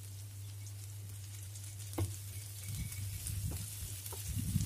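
Egg and shredded-cabbage mixture sizzling in shallow oil in a frying pan. About two seconds in there is a sharp click, then a run of light knocks as a spatula pushes the mixture into shape against the pan.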